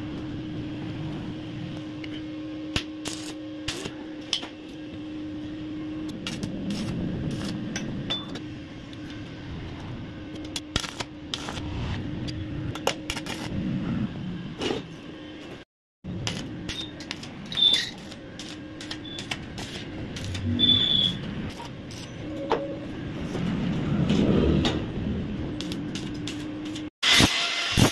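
Stick (arc) welding tacks on a square steel-tube frame: the arc crackles in short bursts, with sharp irregular clicks and clinks of the steel tubes, over a steady low hum.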